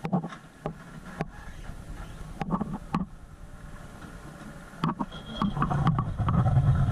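An outboard drag boat's engine running low and quiet, with a few sharp knocks scattered through it, then getting steadily louder over the last second as the boat picks up.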